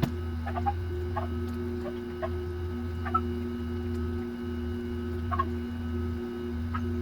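A steady low electrical hum with faint short chirps now and then, about seven times.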